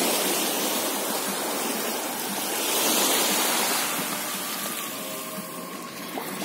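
Small sea waves breaking and washing up a sandy shore, a steady rush that swells about halfway through.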